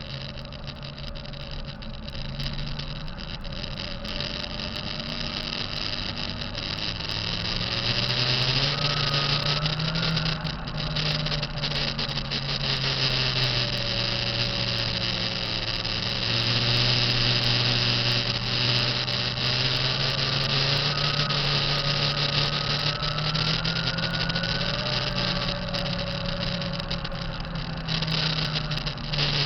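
Diesel engine of a 2005 Kenworth T660 truck running, its speed rising and falling slowly a few times, with a whine that moves with engine speed. The turbocharger is taken to be making a bad sound.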